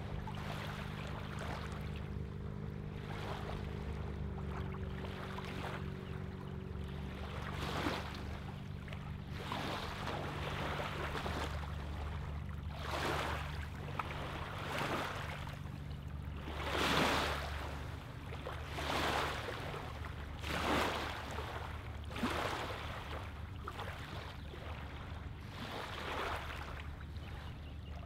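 Small wavelets lapping onto a sandy, pebbly lake shoreline, a soft swash every second or two, loudest about two-thirds of the way through. A steady low motor hum runs underneath and fades out a little past the middle.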